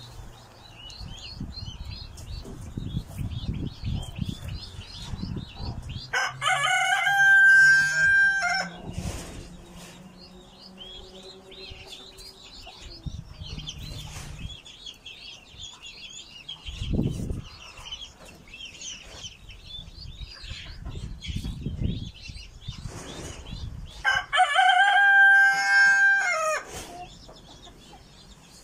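A rooster crows twice, each crow lasting about two and a half seconds, about six seconds in and again near the end. Between and under the crows, chicks peep continually in high, rapid chirps.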